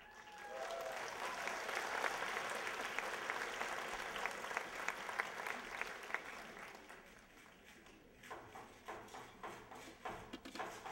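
Audience applauding, dying away after about seven seconds. Near the end a regular clacking starts, two or three knocks a second.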